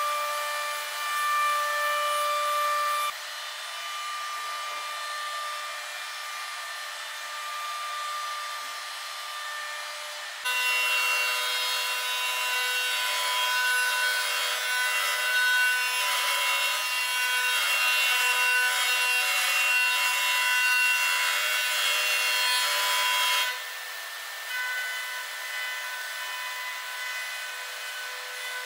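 Router spindle of a Lee Hyun multi-wood CNC machine running with a steady high whine, its bit milling a groove and dentil cuts into a wooden moulding. The cutting noise gets much louder about ten seconds in, runs for some thirteen seconds, then drops back to the plain whine.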